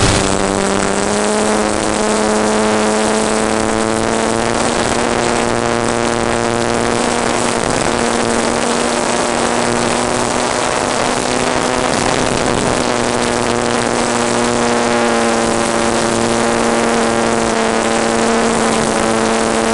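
Model airplane's motor and propeller running in flight, heard from on board: a steady droning tone that rises slightly a second or two in and shifts a little with the throttle, over a constant hiss.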